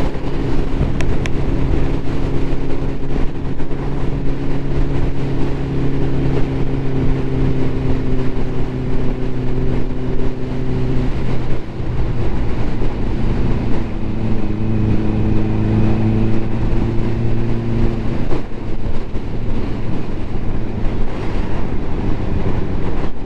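Ducati motorcycle engine running while riding at steady speed, with a rush of wind and road noise. The engine note drops and changes about halfway through, with a brief dip, then holds at a new pitch for a few seconds before fading into the wind noise.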